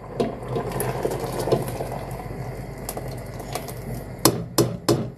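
Thick coconut rice pudding bubbling in a pot as its milk reduces, a steady crackle of small bursting bubbles. About four seconds in, a utensil knocks sharply against the pot several times.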